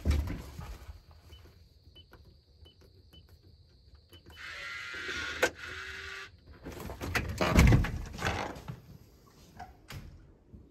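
Code entered on a smart deadbolt's keypad: six short high beeps, then the lock's motor whirring for about two seconds with a click as the bolt retracts. The front door is then opened, with a thump.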